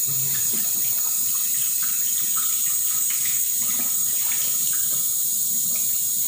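Tap water running steadily into a bowl sink, splashing over soapy hands and a forearm as they are rinsed under the stream: a steady hiss.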